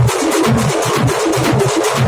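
Dhol drums beaten in a fast, steady rhythm: deep strokes several times a second over a constant bright clatter.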